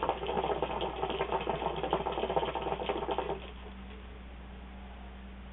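Hookah water bubbling rapidly in the ice-filled base as smoke is drawn through the hose, a dense crackling burble that stops about three and a half seconds in.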